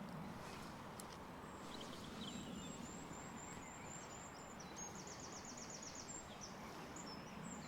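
Steady rush of river water, with a small bird singing a run of quick, high, repeated notes from about two seconds in.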